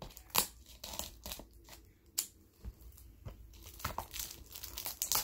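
Plastic shrink-wrap on a DVD case being cut with scissors and pulled off by hand, crinkling and tearing in scattered sharp crackles.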